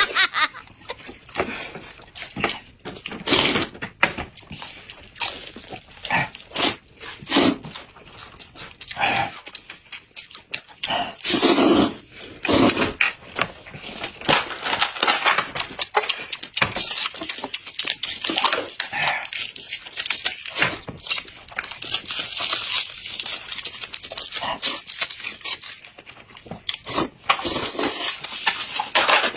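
Close-up eating sounds: noodles slurped and chewed off chopsticks, coming in irregular loud slurps and smacks with short gaps between.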